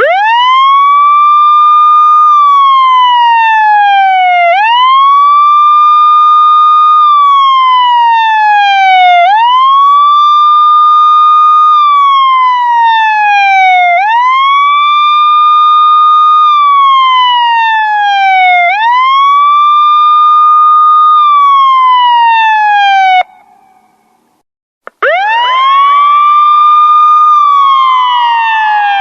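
Police siren wailing. The pitch climbs quickly, holds briefly, then slides slowly down, repeating about every four and a half seconds. After five cycles it cuts off suddenly, and after a second or two of silence it starts again with a fuller, echoing sound.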